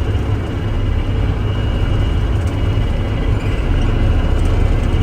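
Torque-converter log skidder's diesel engine running steadily at a little over half throttle while the machine travels down the road, a deep, even rumble.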